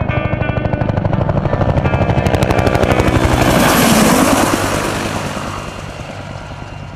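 Helicopter passing overhead, its fast rotor chop growing louder to a peak about four seconds in and then fading away. The tail of a guitar song fades out under it in the first few seconds.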